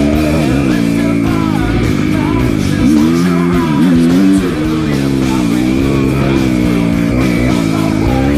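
Kawasaki KX250F dirt bike's single-cylinder four-stroke engine running under riding throttle, its revs dipping and rising again several times as the rider rolls off and back on.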